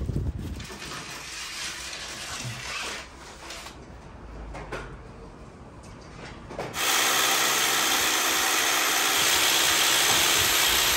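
Scraping and handling noises, then about seven seconds in an electric drill starts up and runs steadily at full speed.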